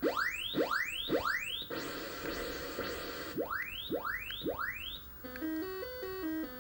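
Commodore 64C computer sound from its test program: three quick rising chirps, about two seconds of hiss, three more rising chirps, then a short stepped beeping tune from about five seconds in. The burn-in test is running on past the point where the faulty MOS 8500 CPU used to freeze it, now that the chip has been cooled.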